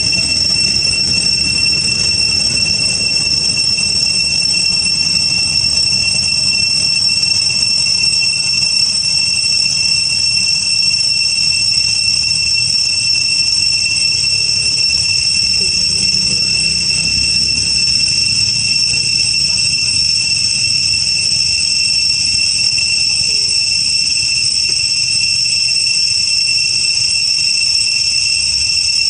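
A chorus of insects keeps up a steady, high-pitched whine, unchanging throughout, with a low rumble beneath it.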